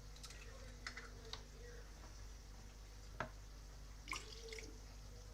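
Faint, sparse drips and clicks as a glass of milk is emptied, with one sharper click about three seconds in.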